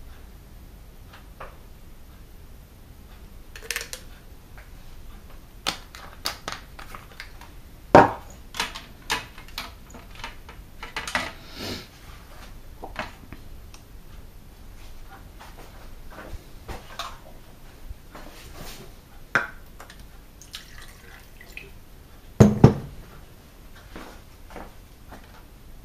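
Plastic storage boxes and medicine bottles being handled on a kitchen worktop: scattered clicks, rattles and knocks, with two louder knocks about eight seconds in and again near the end.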